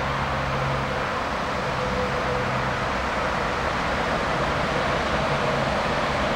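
Train approaching from a distance on an electrified main line: a steady rumble and hiss with a faint low hum, growing slowly louder.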